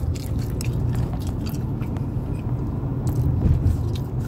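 A man chewing and biting French fries close to the microphone, with scattered small clicks of mouth sounds, over a steady low rumble of the car's cabin.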